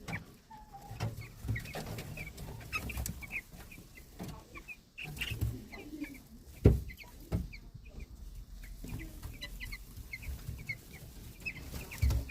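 Baby chicks peeping over and over in short, high chirps while they feed, with scattered low thuds and one sharp knock about six and a half seconds in.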